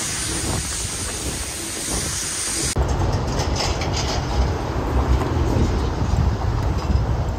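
Wind rushing over a handheld phone microphone during an outdoor run. About three seconds in it cuts suddenly to a louder, rough, gusting low rumble of wind buffeting the mic over heavy road traffic.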